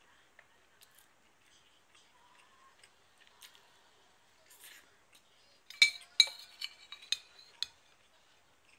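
Metal spoon clinking and scraping against a ceramic bowl while scooping food: a quick run of sharp, ringing clinks lasting about two seconds, starting about six seconds in.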